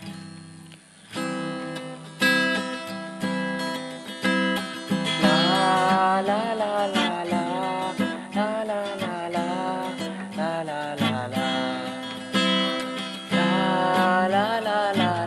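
Acoustic guitar playing a song's introduction, plucked and strummed chords that start softly and grow stronger about two seconds in. A wavering melody line runs over the chords.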